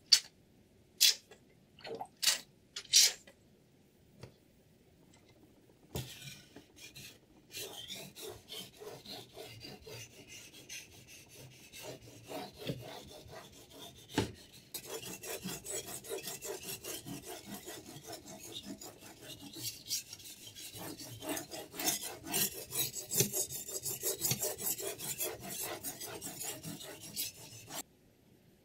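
A whetstone on a Hapstone T1 guided sharpener rasping rapidly back and forth along a knife blade, getting louder about halfway through and stopping abruptly near the end. A few sharp clicks come first.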